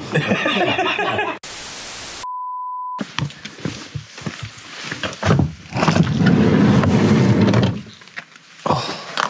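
A brief burst of static hiss cut off by a steady single-pitch beep, an edited signal-lost transition. Then clicks and thunks from handling around a camper van's door, with a low rumble that is loudest for about two seconds near the end.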